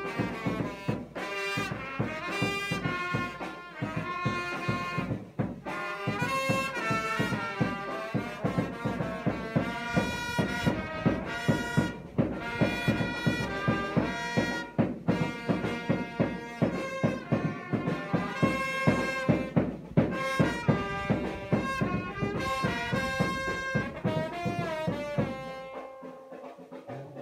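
Vietnamese funeral brass band, with trumpets, playing a melody over a steady drum beat. The music fades near the end.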